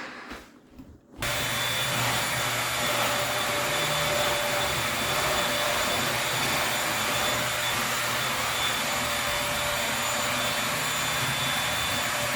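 Dishwasher starting up: about a second in, its motor comes on suddenly and runs with a steady hum and hiss.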